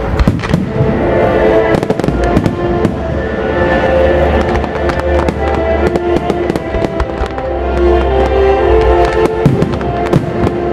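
Aerial firework shells bursting in quick succession, many sharp bangs one after another, over loud music with sustained notes and a deep bass line.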